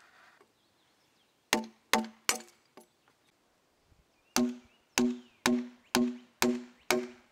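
Long-handled chisel driven by hand into the end grain of a timber post: sharp knocks, each with a brief pitched ring. Three strokes, a pause of about a second and a half, then a steady run of about two strokes a second.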